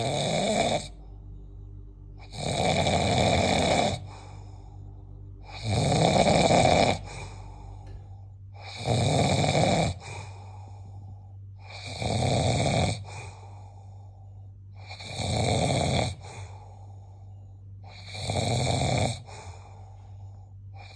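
Sleeper snoring in a regular rhythm, one snore about every three seconds, each lasting about a second. A steady low hum runs underneath.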